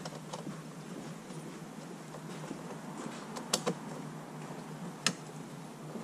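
Clicks and clinks of a hand tool and plastic fittings as the intake system is taken off a diesel engine: a quick pair of sharp clicks about three and a half seconds in and a single loud click about five seconds in, over a steady low hum.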